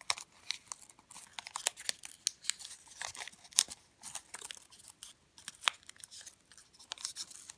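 Origami paper being folded and creased by hand along its pre-creases: a run of short, crisp paper crackles and crinkles at irregular intervals, a few of them sharper than the rest.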